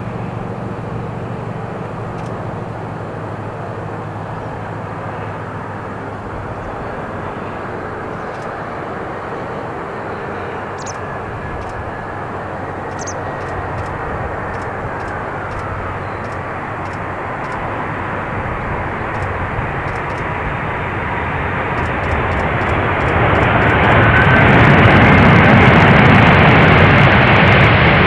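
Airplane engine noise from a fixed-wing aircraft, a steady roar with a faint whine that falls in pitch partway through. The roar then swells over the last several seconds and is loudest near the end, as the aircraft comes close.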